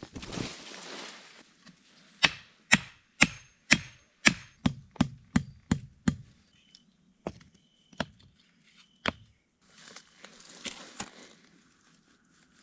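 A canvas tarp whooshes as it is shaken out, then comes a quick run of about ten sharp wooden knocks, followed by three more spaced about a second apart, like a wooden stake being driven in to pitch the tarp. A brief soft rustle follows near the end.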